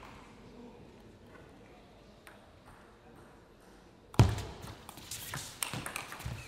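A hush, then about four seconds in a loud thud followed by a quick run of table tennis ball clicks: the ball striking rackets and table in a fast rally.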